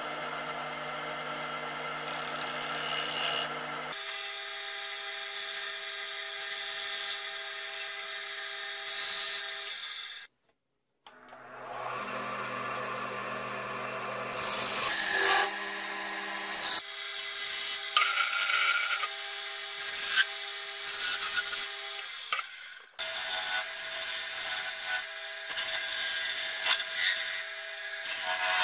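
A HAIS wood lathe runs with a steady motor hum while a hand-held turning chisel scrapes and cuts a long, thin wooden spindle spinning between centres. The sound drops out briefly a little after ten seconds in, then the lathe and cutting resume.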